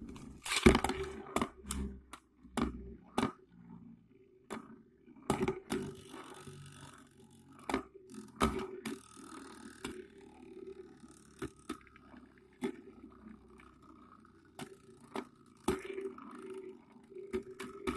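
A Beyblade Burst top and a small homemade top spinning and colliding in a plastic dish stadium. A loud clatter comes just under a second in, then a steady whir runs under scattered sharp clicks as the tops strike each other and the rim.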